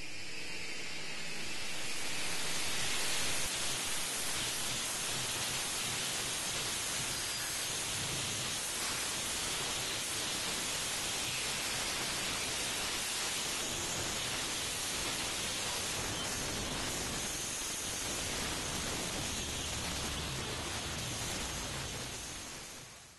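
A steady wash of static-like hiss, swelling over the first few seconds, holding level, then fading out quickly near the end.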